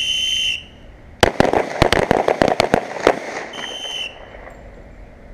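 A range whistle blows, then a quick volley of about a dozen handgun shots from several shooters on the firing line, each firing a two-shot burst. A second whistle blows about a second after the last shot.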